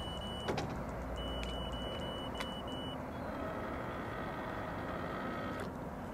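Electric bow-mount trolling motor whining steadily over a low rumble, the whine starting a few seconds in and cutting off shortly before the end. A thin high tone sounds in short spells in the first half.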